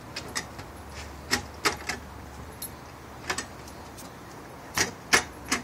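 Short, irregular clicks and scuffs from two dogs tussling over a toy on wood-chip mulch, about ten in all, the loudest near the end.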